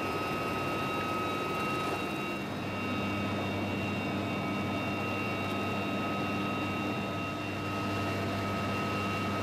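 Helicopter engine running steadily: a constant whine held on several fixed pitches over an even rushing noise, with no change in speed.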